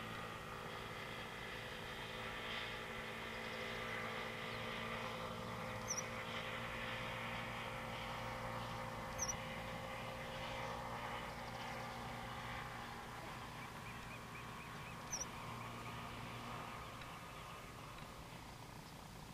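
White-headed marsh tyrant giving short, sharp, very high call notes, three of them, about six, nine and fifteen seconds in, over a steady low background hum.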